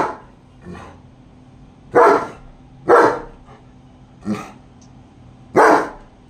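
German Shepherd dog barking in single loud barks a second or so apart, about five in all, with a softer bark in between.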